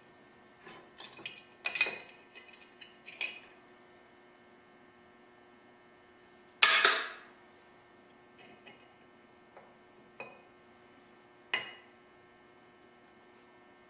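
Metal parts of an old air pump being handled during disassembly: scattered light clinks and clicks, with one louder clatter about seven seconds in, over a steady low hum.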